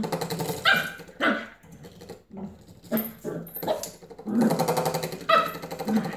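Cockapoo puppy growling in play, with several short, sharp barks breaking in between the growls.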